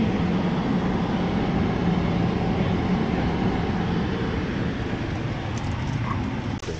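Steady low rumble of a moving vehicle, easing slightly toward the end and cutting off abruptly just before the end.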